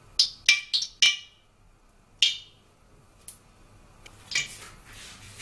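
Water spitting in hot oil in a wok over low heat: about four sharp pops in the first second, another a second later, then a short sizzling hiss near the end.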